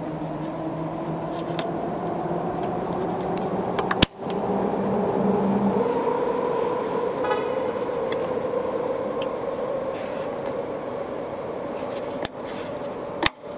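A vehicle engine running steadily, its pitch rising slowly, with a few sharp clicks from a small pick prying at the metal retaining clip on the end of the liftgate gas strut.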